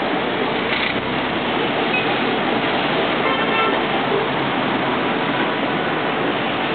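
Steady street traffic noise, with faint short car-horn toots about a second in and again around three and a half seconds in.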